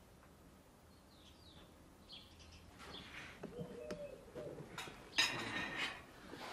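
Small birds chirping in the background, with a few longer mid-pitched calls, over the light clink and scrape of spoons on plates. A brief, louder scraping rush about five seconds in is the loudest sound.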